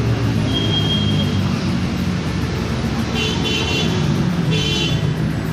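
Steady rumble of road traffic, with two short high-pitched sounds about three and four and a half seconds in.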